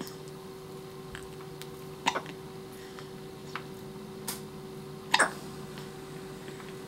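Newborn baby hiccuping: two short hiccups about three seconds apart, the second the louder, over a steady low hum.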